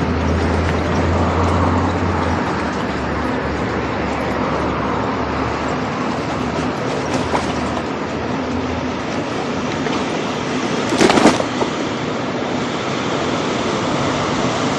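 Steady street traffic and vehicle noise, with a low engine hum through the first couple of seconds and a short clatter about eleven seconds in.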